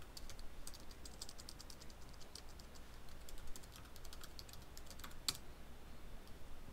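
Typing on a computer keyboard: a quick run of keystrokes, then a few scattered taps and one louder key press about five seconds in.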